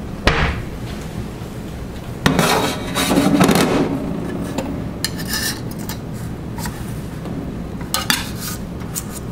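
Plates and dishes clattering as they are handled: a sharp knock just after the start, a longer rattle of crockery around two to four seconds in, and a few more clinks near the end.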